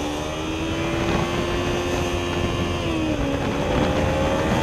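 Kawasaki Ninja 300's parallel-twin engine on its stock exhaust, running steadily at cruising revs in a higher gear, with wind rushing over the microphone. The revs dip briefly about three seconds in and then pick back up.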